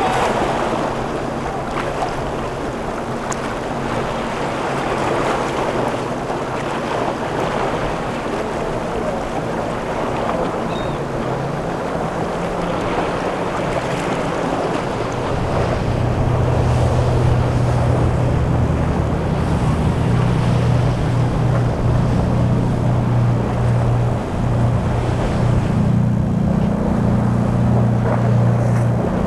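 Boat engines running at low speed under wind on the microphone and water noise. About halfway through, a deeper engine drone comes in and stays loud.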